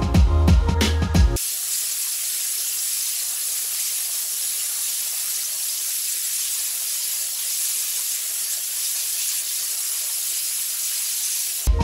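Music with a heavy bass beat cuts off about a second in, leaving the steady high hiss of a 60,000 PSI waterjet cutting through steel rail. The music comes back near the end.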